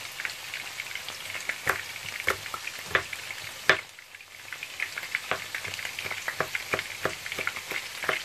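Chef's knife mincing garlic on a plastic cutting board, irregular sharp chops, over the steady crackling sizzle of tofu frying in oil. The sizzle dips briefly about four seconds in.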